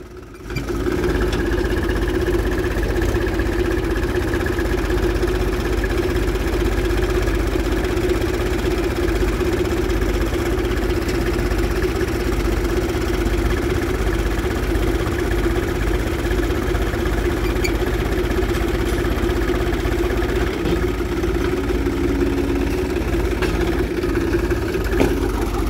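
Swaraj 735 FE tractor's diesel engine running steadily under heavy load, straining to pull a loaded trolley out of deep sand.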